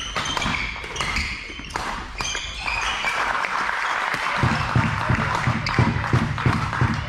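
Badminton in a sports hall: sharp hits and shoe squeaks on the court, then from about three seconds in a crowd cheering and clapping, joined by a rhythmic thumping about three times a second.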